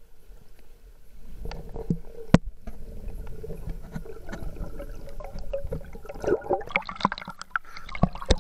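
Muffled underwater gurgling and sloshing as a swimmer rises toward the surface, with scattered knocks and, just before the end, sharp splashes as the surface is broken.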